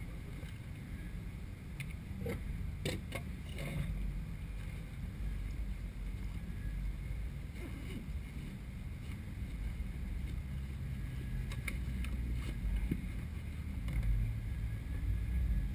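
A steady low rumble that swells near the end. Over it come a few sharp clicks and rustles of bags and small gear being handled on a wooden table, several about two to four seconds in and a couple more later.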